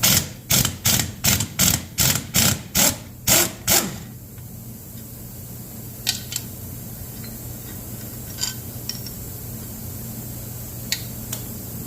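About ten steady hammer blows, roughly two and a half a second, driving an undersized metric socket onto a heat-shrunk exhaust manifold bolt head on a Ford 429 big-block. A few light metallic clinks of tools follow.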